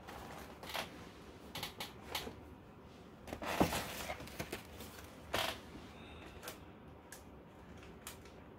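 Packaged toys in cardboard and plastic being picked up and moved across a tabletop: scattered light knocks, clicks and rustles, the loudest a short cluster a little over three seconds in.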